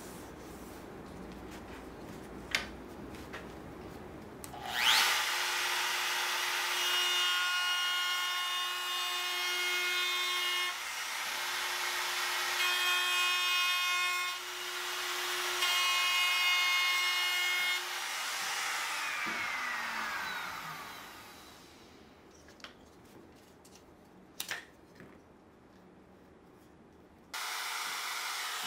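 Compact electric trim router starting up and running with a steady high whine as it cuts small walnut and white oak pieces, the level stepping with each pass, then spinning down with a falling whine. A few sharp knocks follow, and the router is running again near the end.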